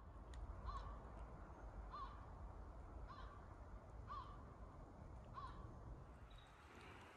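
A crow cawing in a steady series, five caws a little over a second apart, falling silent about five and a half seconds in, over a low steady rumble.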